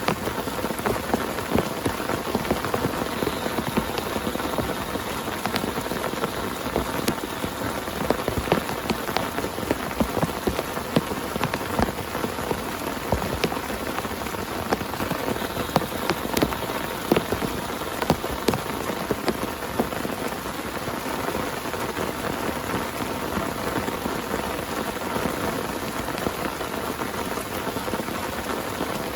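Heavy rain falling steadily, with many sharp individual drops striking a nearby surface.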